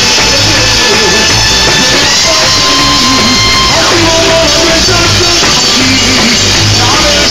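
Loud live band music: a drum kit with cymbals keeps a steady beat under a melody of long held notes.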